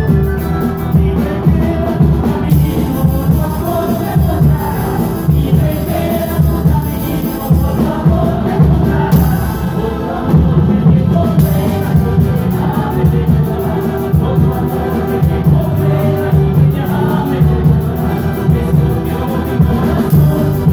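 Live Andean-style folk music: a group of voices singing together over strummed guitars, with a steady low beat from amplified bass and percussion.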